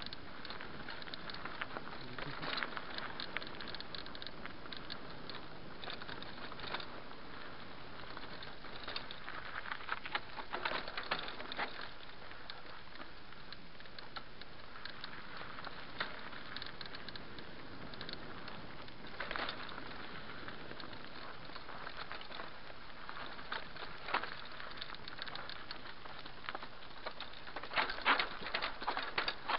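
Mountain bike riding downhill on a dirt singletrack: tyres crackling over dirt and loose stones and the bike rattling, a steady hiss broken by many small clicks. A louder flurry of rattling comes near the end over a rocky section.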